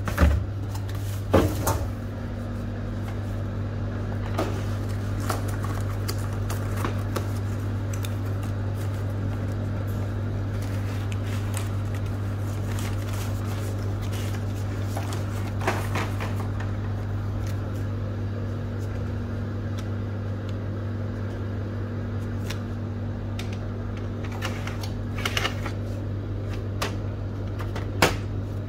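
Scattered plastic clicks and knocks from handling the Kyocera TASKalfa copier's front cover and toner cartridges, sharpest in the first two seconds and again near the end. Under them runs a steady low hum.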